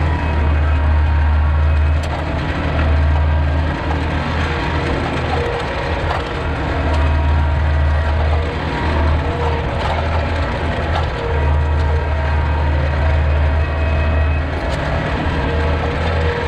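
Compact diesel tractor engine running under load while it drags a landscape rake through dirt and wood debris, its low note swelling and easing every few seconds. A few sharp cracks of wood debris break through.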